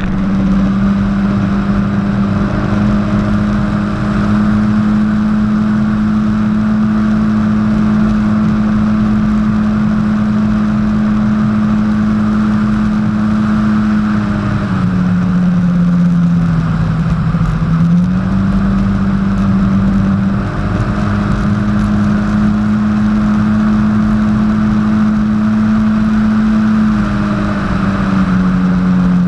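Jet ski engine running steadily at speed over a constant rush of noise. Its pitch drops for a few seconds about halfway through as the throttle eases, picks back up, and drops again near the end.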